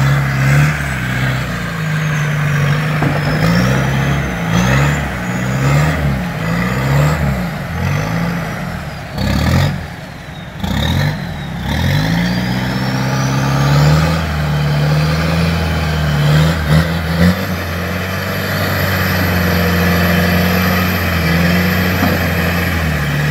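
Toyota Land Cruiser's engine revving under load as it is winched out of a river, its spinning wheels churning the water. The revs rise and fall several times in the first half, drop off briefly around ten seconds, then hold higher and steadier.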